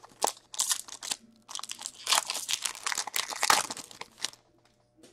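Hockey card pack wrapper being torn open and crinkled in the hands, a run of crackling and crunching that stops after about four seconds.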